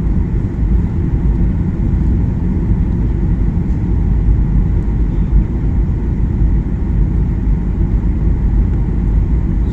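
Jet airliner cabin noise in flight: a steady low rumble of the engines and airflow heard through the cabin, without change.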